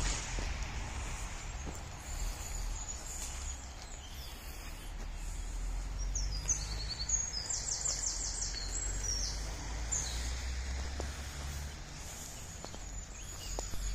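Small birds singing and chirping, with a quick trill of repeated notes about seven to nine seconds in, over a steady low rumble and a few faint footsteps on needle-covered forest floor.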